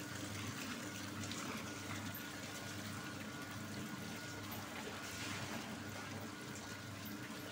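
Soy milk pouring and splashing from a cloth filter bag into a concrete vat of foamy liquid, over a steady machine hum.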